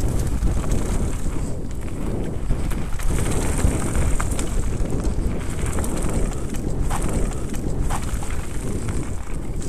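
Mountain bike riding fast down a dirt singletrack, heard from a camera mounted on the bike: a steady low rumble and rattle of the tyres and frame over the rough ground, with scattered sharp clicks and knocks.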